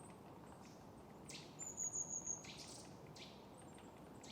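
Faint birdsong: a cluster of high, thin chirps with a drawn-out high whistle, about one and a half to two and a half seconds in, over a faint steady background hush.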